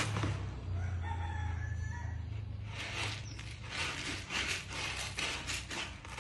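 A rooster crows in the background for about the first two seconds. Then a hand rakes and stirs pellet cat litter in a plastic litter box, a rapid, dense rustling of the pellets.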